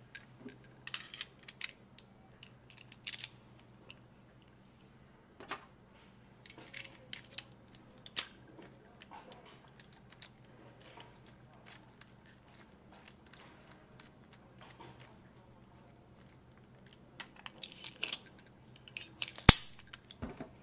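Metal parts of a stainless-steel US Sankey keg coupler being fitted back together by hand: scattered small clicks, clinks and scrapes, busiest near the start and near the end. The loudest single sharp click comes near the end, as the lever handle is pushed on. A faint steady low hum lies underneath.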